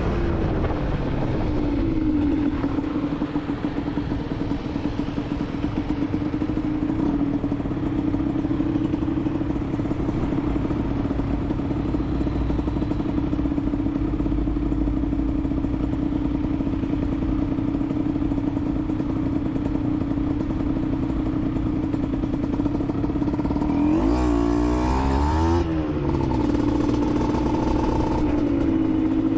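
Aprilia SX 125's single-cylinder two-stroke engine through an Arrow exhaust, under way: the revs drop in the first two seconds, then hold steady for a long stretch. About 24 seconds in the revs swing up and down several times before settling back to a steady pitch, over a low rumble of wind and road noise.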